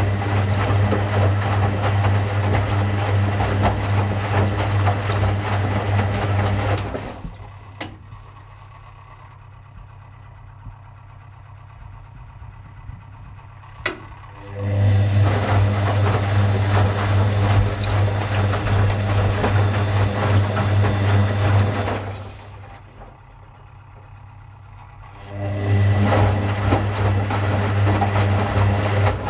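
Washing machine motor turning the drum in three runs of several seconds each, with a steady low hum. Between the runs it drops to a quieter pause marked by a few sharp clicks. The stop-start pattern is typical of a wash cycle, with the drum pausing and reversing between turns.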